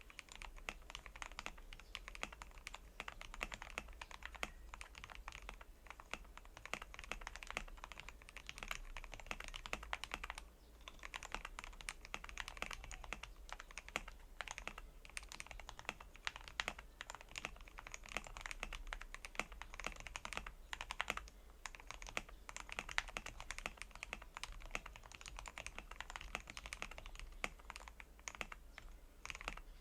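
Womier K87 mechanical keyboard with lubed Gateron Yellow linear switches being typed on steadily and fast, a dense run of keystrokes with a brief pause about ten seconds in.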